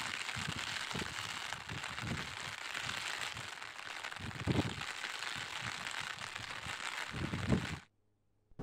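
Floodwater rushing at a barrage with its gates open: a steady hiss broken by many irregular low thumps. It stops abruptly near the end.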